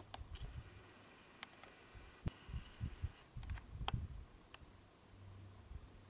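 Faint camera handling noise: scattered small clicks and soft low thumps as the camera is panned and zoomed, with a faint low hum near the end.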